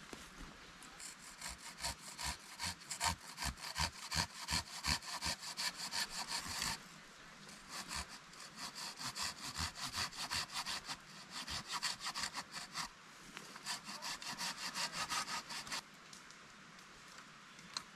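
Hand saw cutting through a wooden pole with steady back-and-forth strokes, about two or three a second, in three bouts that stop about sixteen seconds in.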